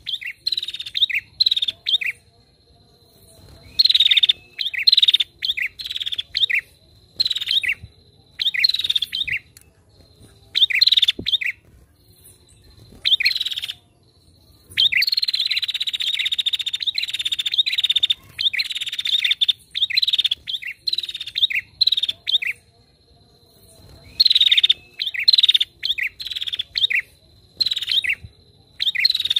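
Female prinia (prenjak) calling: runs of rapid, sharp, high chirps lasting a few seconds each, separated by short pauses, with one longer unbroken run of about seven seconds in the middle.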